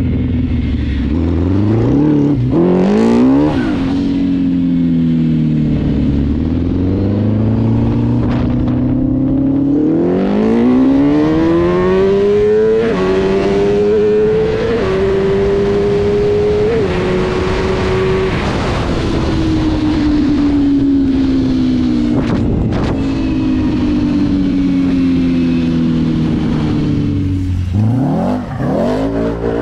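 Yamaha R1 crossplane inline-four engine in a Raptor quad, revving hard as the quad accelerates, holding high revs with small steps as it changes gear, then falling in a long steady drop as it slows. Near the end there is another quick rise in revs.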